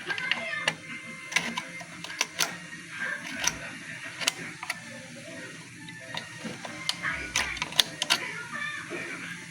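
Irregular sharp clicks and light mechanical rattling, a dozen or so scattered taps at uneven spacing.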